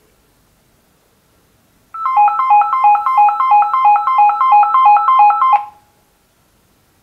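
Big-button cordless phone handset ringing with an electronic ringtone: a quick repeating pattern of short beeping notes at about four a second. It starts about two seconds in and cuts off suddenly after about three and a half seconds.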